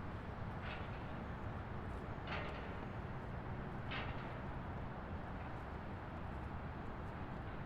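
Steady low road rumble of a car driving on a highway. Three short rushing swells come over it: one just under a second in, one past two seconds and one at about four seconds.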